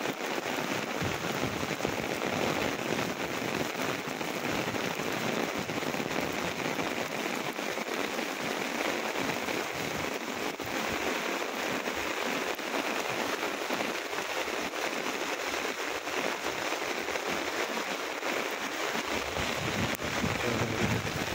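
Heavy rain falling steadily on wet paving and standing water, an even dense hiss of drops, with a little more low rumble near the end.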